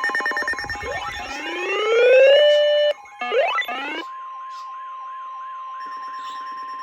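Electronic emergency alert tones: a rapidly pulsing buzz of several tones, then two rising siren-like sweeps. From about four seconds in, a single steady high alarm tone holds, ending just before the next warning message is read.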